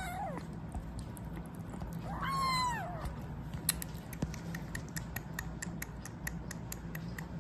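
A kitten gives one mew that rises and falls, then makes quick wet clicks about four times a second as it suckles milk from a feeding syringe.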